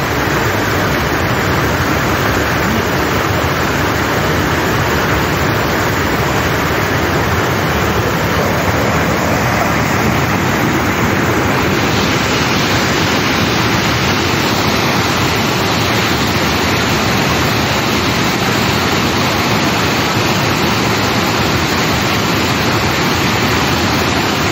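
River water rushing steadily over a bamboo fish trap, a loud even cascade that turns a little hissier about halfway through.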